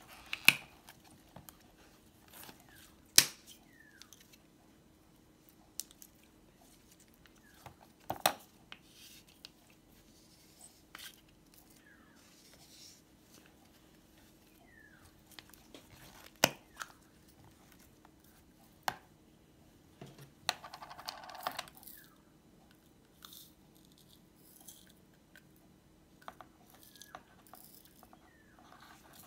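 Hands squeezing and pulling sticky glitter slime, with scattered sharp pops and clicks and a brief rustle about twenty seconds in.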